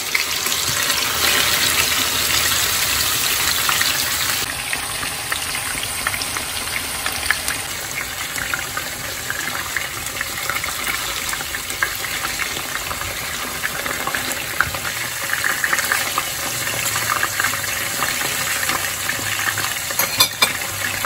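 Cross-cut shank pieces (osso buco) sizzling in hot oil in a frying pan as they brown: a steady hiss full of small spitting crackles.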